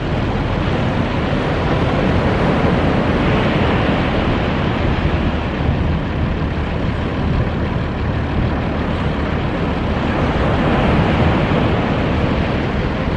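Ocean surf breaking and washing up the beach: a steady rushing noise that swells twice, with a low rumble underneath.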